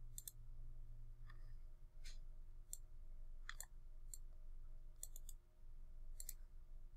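Faint computer mouse clicks, some in quick pairs, coming every second or so over a low steady hum.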